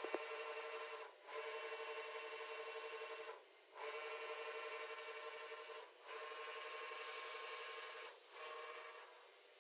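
CNC milling machine cutting metal: a steady pitched cutter whine that drops out briefly every two to two and a half seconds as the tool leaves the cut, with a hiss joining it for a moment near the end.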